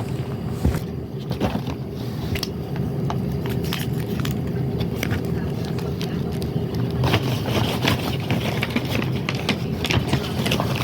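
Small blind-bag toys being handled and packed into a container: scattered clicks and scrapes, coming thicker in the last few seconds, over a steady low hum.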